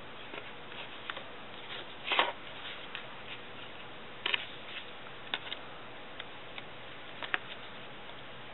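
Small irregular clicks, ticks and crinkles of washi tape being unrolled, pressed onto paper and torn against a plastic card edge, with a louder crackle about two seconds in.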